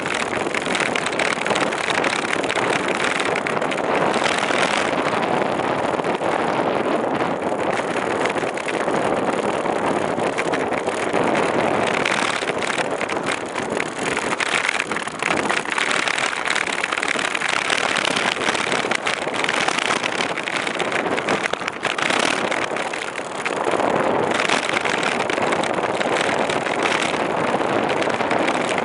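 Steady wind rush and rolling noise on the microphone of a camera travelling on a moving bicycle, easing briefly about 23 seconds in.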